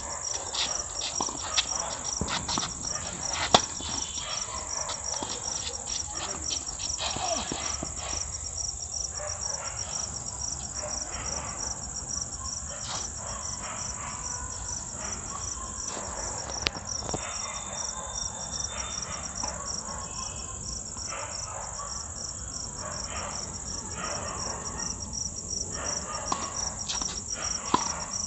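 Night insects trilling in a steady, evenly pulsing high chirp. Over it come the sharp pops of tennis rackets striking the ball in a rally during the first several seconds, only a few in the middle, then more hits near the end.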